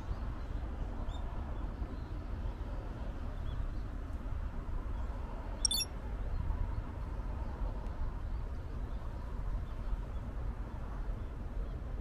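Outdoor ambience: a steady low rumble with faint, scattered short bird chirps. A brief sharp rattle comes about six seconds in.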